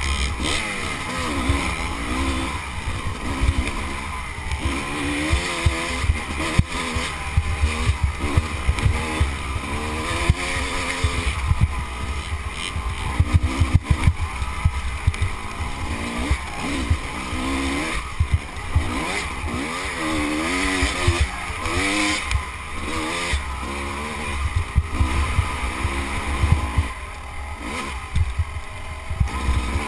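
Dirt bike engine revving up and falling back again and again as it is ridden hard over rough ground, with heavy wind buffeting on the microphone and frequent knocks and clatter from the bumps.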